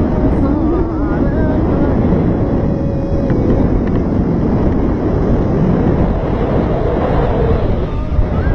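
Loud, steady rush of wind buffeting the microphone in paragliding flight.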